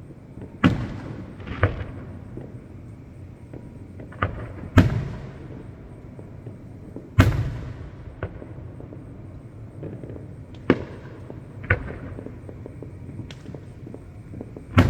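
Fireworks shells bursting in about ten sharp booms at irregular intervals, each trailing off in a short echoing rumble; the loudest come about five and seven seconds in.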